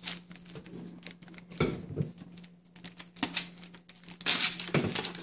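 Small plastic bags being crinkled and torn open, with scattered rustles and light clicks and louder rustling bursts about a second and a half in and near the end. A faint steady hum runs underneath.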